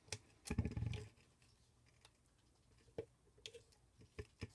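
Scattered small clicks and taps of needle-nose pliers gripping and working a wire connector off the brush holder of a vacuum cleaner motor, with a brief low sound about half a second in.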